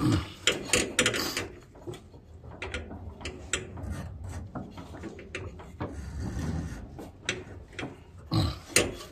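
A rubber belt being worked by hand onto the metal pulleys and idler arm of a Craftsman riding mower: scattered clicks, knocks and rubbing of belt on metal. The loudest knocks come about a second in and again near the end.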